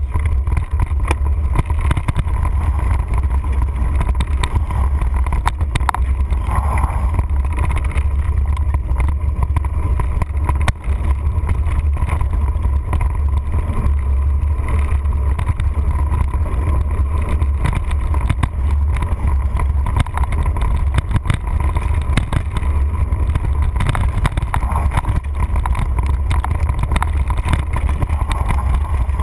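Mountain bike ridden over a dirt singletrack trail, heard through a handlebar-mounted camera: a steady low rumble with constant clicks and rattles as the bike and camera mount jolt over the bumps.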